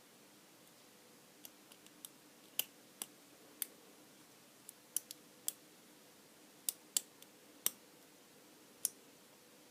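Metal lock pick and tension wrench clicking inside a small Abus lockout padlock while its pins are picked: about sixteen sharp, irregular clicks and taps.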